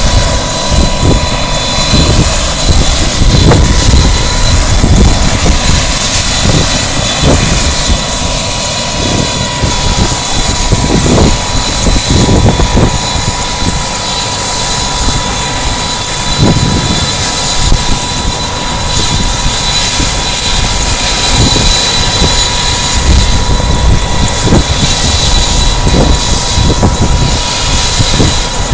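Bell 206B JetRanger III helicopter running close by: a steady high turbine whine over a heavy low rumble, with rotor downwash gusting across the microphone.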